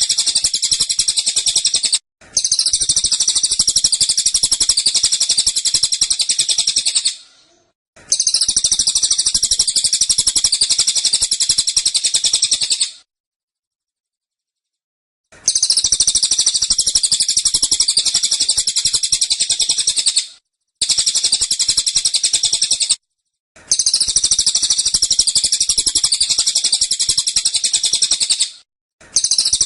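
Cililin songbird singing its rapid 'tembakan' song, dense and persistent: long spells of fast, high, chattering notes lasting several seconds each, broken by short pauses and one silence of about two seconds midway.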